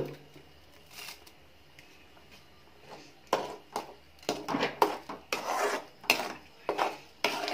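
A spatula stirring thick ground tomato paste in a kadai, scraping against the pan in a string of short strokes that begins about three seconds in.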